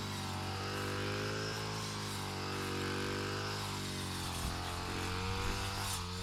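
Small petrol engine of a grass-cutting machine running steadily under load, its pitch swaying gently up and down.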